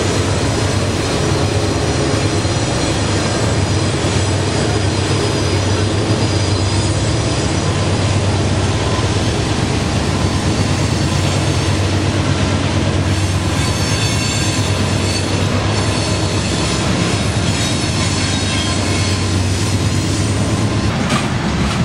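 Loaded steel coil freight train rolling past close by, working upgrade. The last of three GE Dash 9-40CW diesel locomotives passes at the start, then the heavy coil cars' wheels rumble steadily over the rails, with high wheel squeal joining in the second half.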